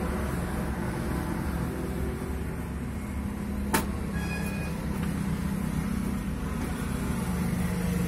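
Motorcycle engine idling steadily with its fuel tank removed. A single sharp click is heard about halfway through.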